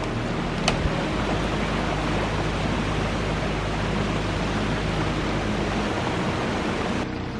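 Steady rush of running water, like a small creek spilling over a low log structure.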